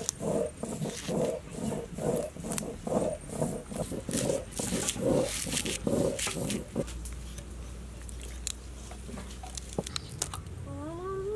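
Rhythmic crunching strokes, about two a second, of food being worked by hand; they stop about seven seconds in, and a low steady hum follows.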